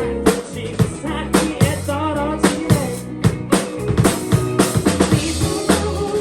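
Rock band playing live, an instrumental stretch of the song with drum kit hits to a steady beat over bass and guitar.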